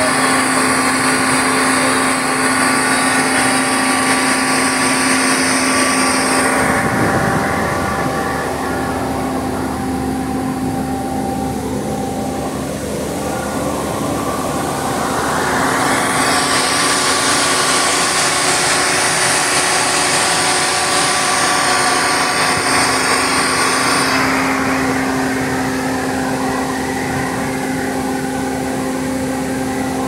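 Sany crane's engine and air-conditioning compressor running steadily: a continuous machine hum with several held tones. A high hiss sounds over it for the first several seconds, drops away, comes back for a stretch in the middle, then fades again.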